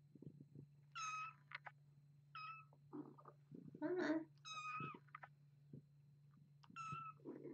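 Young kittens mewing: four short, high-pitched mews a second or two apart, with softer cat sounds between them over a steady low hum.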